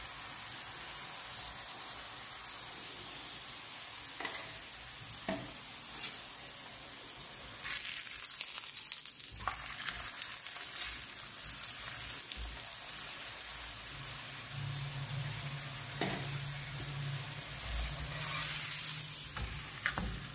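Mooli paratha frying in oil on a nonstick tawa, sizzling steadily, with occasional taps and scrapes of a spatula pressing and turning it. The sizzle flares louder for a second or two about eight seconds in.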